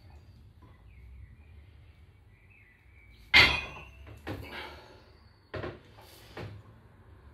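A 65 kg loaded barbell is lifted off the floor with a loud, sharp clank of the plates a little over three seconds in, followed by three quieter knocks and clinks of the plates as the lifter stands up with the bar.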